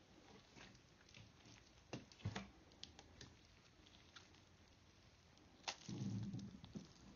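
Faint sticky squishing and small clicks from green slime and an orange water-bead stress ball being squeezed in the hand. About three-quarters of the way through, a sharp click and then a short low squelch as a blade slits the ball and its beads spill into the slime.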